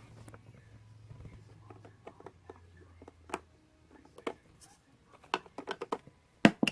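Cosmetic packaging and products being handled during an unboxing: scattered clicks and taps, quickening into a run of them in the last two seconds, with the loudest pair of knocks near the end.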